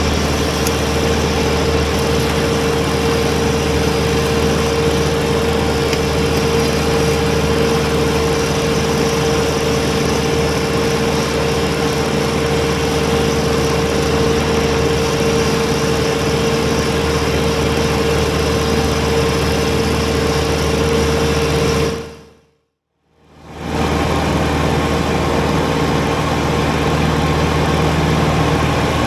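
Kubota BX23S compact tractor's three-cylinder diesel running steadily under snow-clearing work, with a steady whine over the engine note. About three quarters of the way through the sound drops briefly to silence, then the engine sound comes back.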